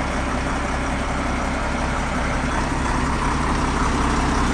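Crane truck's diesel engine idling steadily with a low, even hum.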